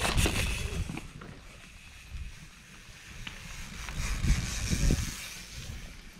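Mountain bike going by on a muddy trail: tyres hissing over the dirt, loudest about four seconds in, with wind rumbling on the microphone.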